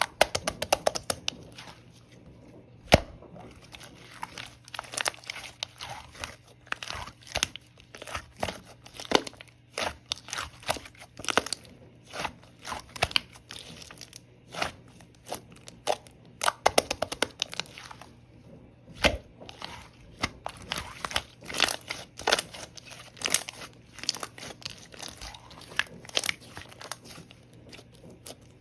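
Pink pearl slime being squeezed, folded and stretched by hand, giving clusters of irregular sticky clicks and crackling pops of trapped air.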